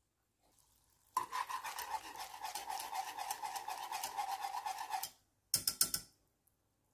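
Wire whisk stirring hot dark sauce in a stone-coated saucepan: a fast, rhythmic scraping swish for about four seconds, then a few quick taps.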